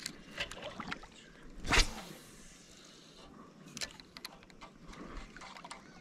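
Shallow river water sloshing and splashing lightly around a wading angler, with scattered faint clicks and one louder splash-like swish about two seconds in.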